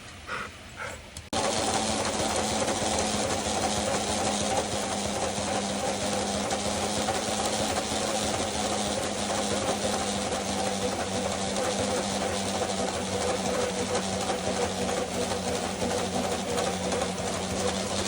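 A motorised dog treadmill switches on about a second in and runs steadily, its motor humming with a whirring belt, while a dog runs on it. Just before it starts, a dog gives a few short whines.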